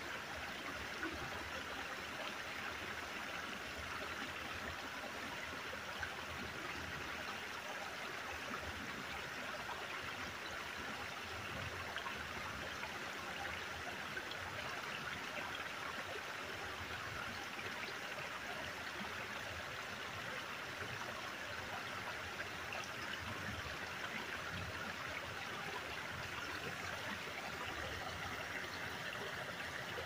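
Shallow rocky creek flowing over stones: a steady, even rush of running water.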